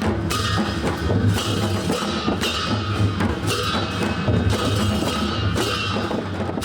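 Live traditional Newari festival percussion: drums beating a dense, steady rhythm, with bright crashes recurring about once a second.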